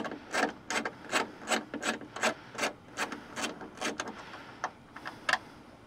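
Socket ratchet working a bolt in a rivet-nut insert just collapsed into the tailgate sheet metal, a short rasping click on each back-and-forth stroke, about three strokes a second. It stops about four seconds in, with two last strokes near the end.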